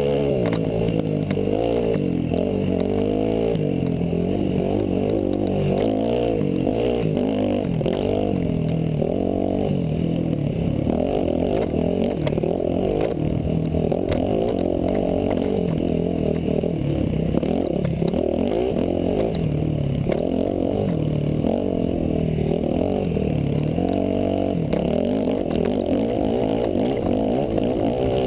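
Dirt bike engine running hard at racing speed, its pitch rising and falling again and again as the throttle is worked over rough trail.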